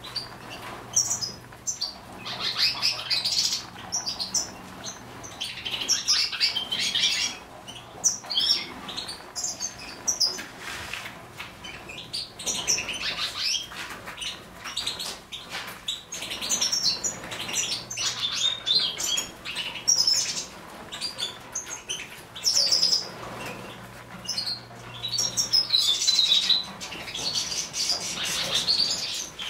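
A flock of Siberian goldfinches chirping and twittering in quick clusters of high calls, with wings fluttering as birds flit about.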